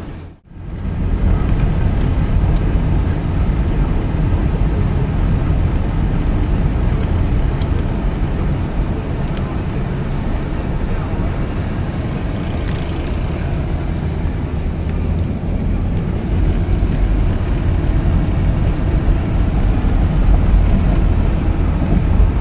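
Steady road and engine noise inside a car driving on snow-covered roads, with a brief dropout about half a second in.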